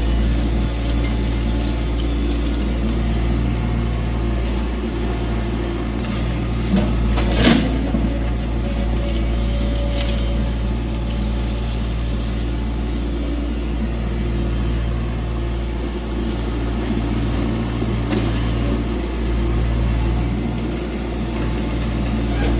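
Tata Hitachi EX70 excavator's diesel engine running steadily while the machine works, with a single metallic clank about seven seconds in.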